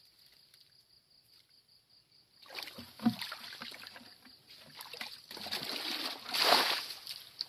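Muddy water splashing and pouring out of a plastic bucket tipped into a mesh scoop net. It starts after a couple of quiet seconds, comes in several uneven gushes, and is loudest near the end as the bucket empties.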